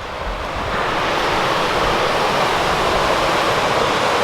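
A waterfall's steady rush of falling water, a lot of noise, growing louder about a second in and then holding.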